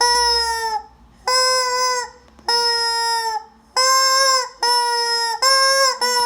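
A chicken squawking again and again: about six long, loud calls of just under a second each, all at the same steady pitch with a short dip at the end, coming roughly once a second.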